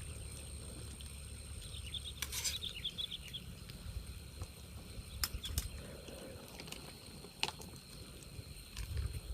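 Faint outdoor ambience with a low rumble, broken about two seconds in by a quick run of short, high chirping notes from an animal, and a few sharp clicks later on.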